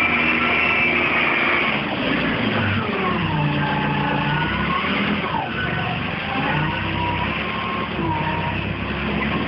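Small tractor engine running under load as the front loader pushes manure and straw, its pitch slowly rising and falling.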